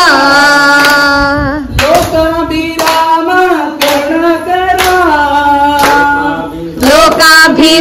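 A small group singing a Rama bhajan in long held, wavering notes, with hand claps keeping time about once a second.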